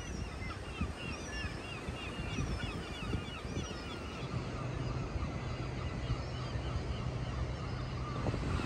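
Birds calling in quick, wavering chirps over a rough rush of wind on the microphone. A low steady hum comes in about four seconds in and stops near the end.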